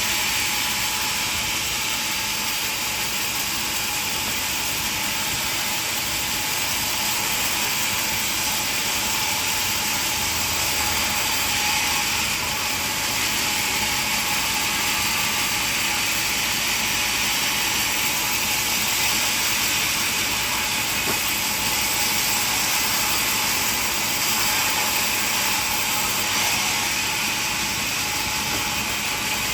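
Sawmill machinery running: a steady, even, high-pitched noise with no separate strikes or pauses.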